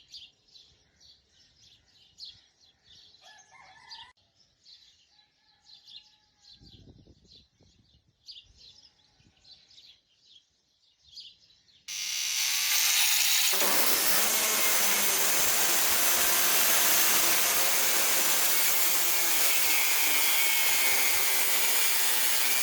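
Quiet, rhythmic hand scraping strokes on the steel blade, then about twelve seconds in a power grinder starts and runs loudly and steadily against the metal.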